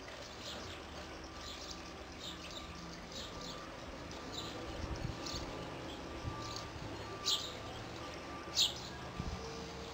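Small birds chirping, with short high chirps repeating every fraction of a second and a few louder ones near the end.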